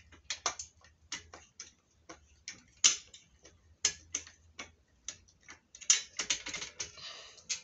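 Irregular sharp clicks and taps of metal on metal from hands working on a workbench's metal leg frame during assembly, loudest about three seconds in and again about six seconds in, with a quicker cluster near the end.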